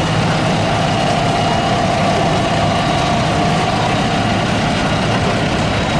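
Several diesel tractor engines idling together, a steady drone that does not change.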